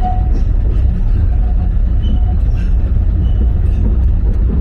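Alishan Forest Railway train running, a steady low rumble heard from inside its carriage, with a few faint brief squeals over it.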